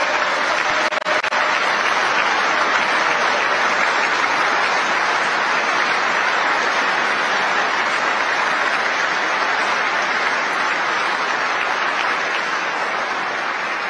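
Large audience applauding, a dense steady ovation of many hands clapping that eases slightly near the end.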